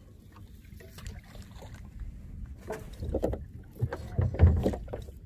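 Water slapping against a small boat's hull, with low wind rumble, and a few thumps and rustles of handling about three to five seconds in.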